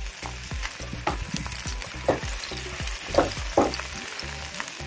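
Diced vegetables sizzling steadily in a frying pan on a portable gas stove, with a spatula stirring and scraping through them several times as tomato is sautéed with onion, carrot and potato.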